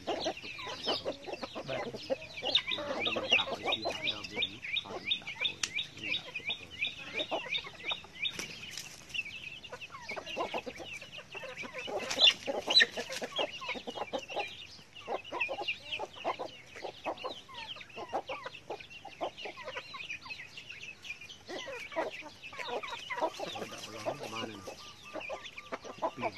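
Chickens clucking, with many chicks calling in quick, short, high peeps while the flock scratches and pecks at the ground. A steady high tone runs under them for the first eight seconds or so and cuts off suddenly.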